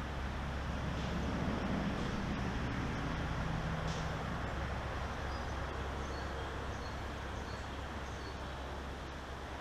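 Steady roadside traffic noise, with a vehicle's engine passing in the first few seconds.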